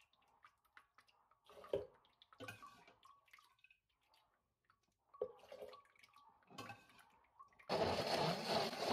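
A silicone spatula working through soybean milk in a plastic basin: faint splashes, liquid sloshing and light clicks against the basin. Near the end a much louder, steady sound starts abruptly.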